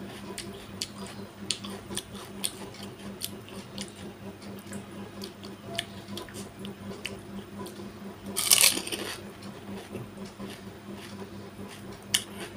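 Close-miked eating of pani puri: small wet mouth clicks and handling sounds, then a loud crunch a little past the middle as a water-filled puri shell is bitten and crushed in the mouth. A steady low hum runs underneath.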